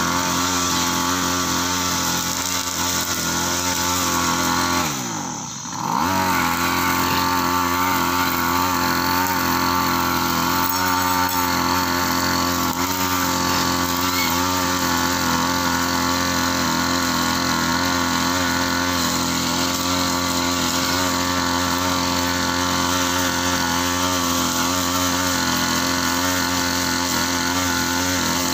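Backpack brush cutter's small petrol engine running at high revs while cutting grass, dropping briefly toward idle about five seconds in and revving straight back up.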